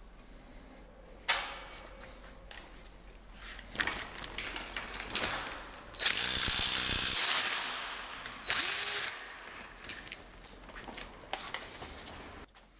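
Power drill run in two bursts, the first about a second and a half long and the second shorter, with a thin high motor whine. Sharp knocks and clicks of metal hardware and tools being handled come before and after the bursts.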